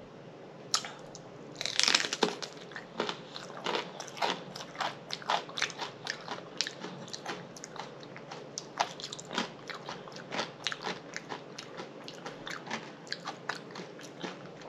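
A person biting and chewing crunchy food close to the microphone: a loud crunching bite about two seconds in, then steady crunching chews, about two a second.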